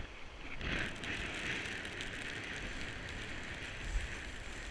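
Surf breaking on a steep shingle beach, the wash hissing steadily from about a second in, with a low wind rumble on the microphone.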